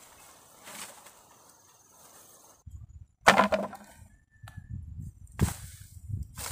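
A few sharp strikes of a hand tool at work clearing ground: a faint one about a second in, a loud one about three seconds in, and two more near the end, with low rumbling between the last ones.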